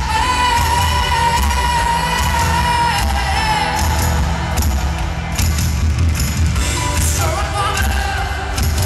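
Live band playing in an arena, with a woman singing a long held note over bass and steady drum hits, then further sung phrases near the end. The sound is heard from the audience, with the hall's reverberation.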